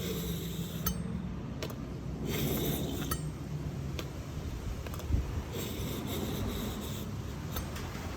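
A kitchen knife blade drawn through an EdgeMate Anvil sharpener's stone from heel to point, in two light scraping strokes a few seconds apart, with small clicks of the blade in between.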